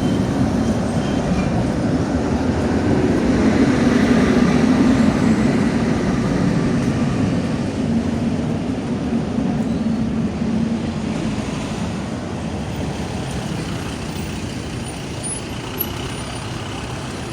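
Rumbling traffic noise from a heavy road vehicle, swelling to its loudest about four to five seconds in and then slowly fading.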